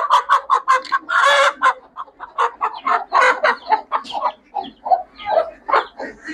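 Hens clucking in a quick run of short calls, with a louder, harsher burst about a second in, as an Aseel hen is grabbed and lifted out of its cage.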